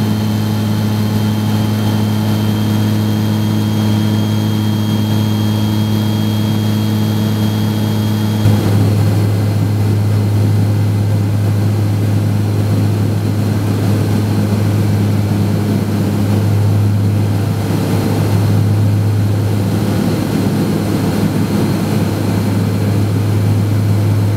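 Steady drone of the Jetstream 31's twin Garrett TPE331 turboprop engines and propellers in cruise flight, heard inside the cabin: a deep hum with higher whining tones. About eight seconds in, the sound changes abruptly, the higher tones dropping away and a rougher rushing noise taking their place.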